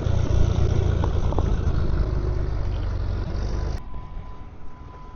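A truck engine runs with a steady low drone, then cuts off abruptly almost four seconds in. A steady high-pitched beep tone carries on after it.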